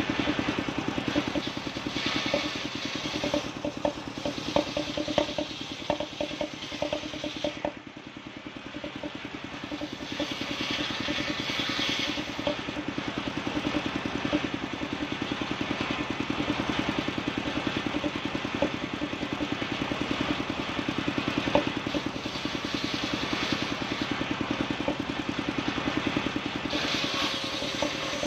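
Engine-driven circular saw table running steadily, its large blade ripping bayur (wadang) wood planks into rafters, with the cutting noise swelling during a few passes. Wooden knocks and clatter of boards being handled.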